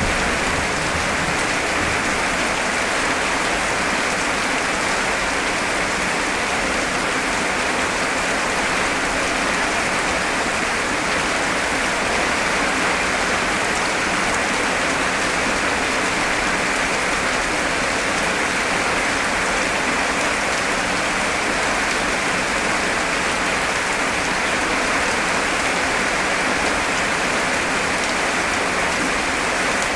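Heavy rain hammering down in a steady, unbroken hiss.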